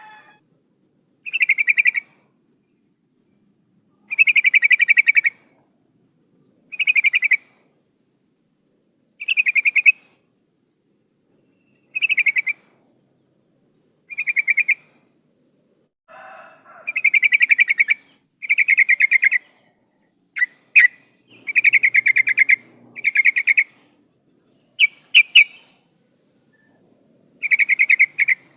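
Yellow-vented bulbul (trucukan) calling: short bursts of rapid chattering notes, repeated about every two seconds, with a few sharp high chips in between. This is the female's call, used as a lure to draw a male.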